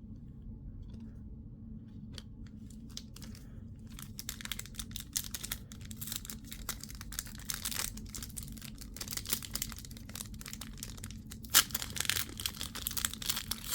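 Trading-card pack wrapper being torn and crinkled open by hand. A few light ticks come first, then crackling from about four seconds in, with one sharp loud crack near the end.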